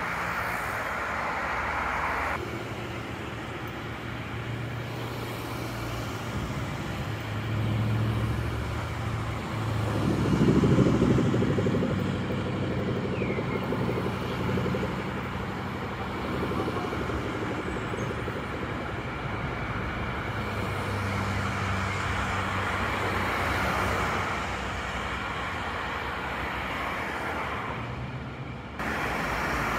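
Road traffic: cars driving past on the street below one after another, with a louder pass-by about ten seconds in.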